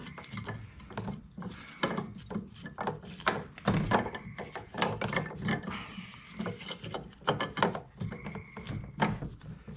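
Handling noise from an LED headlight bulb and its wiring being worked into a plastic headlight housing by gloved hands: irregular plastic clicks, taps and rubbing, with a few brief squeaks.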